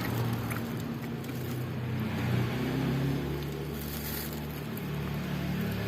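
A motor vehicle's engine passing on the road: a low steady hum that drifts slowly in pitch, swelling about two seconds in and then easing off.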